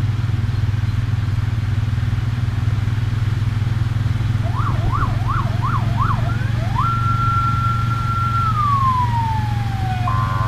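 An electronic siren yelps up and down five times, then rises to a held wail and slowly glides down, over the steady low rumble of traffic driving through floodwater.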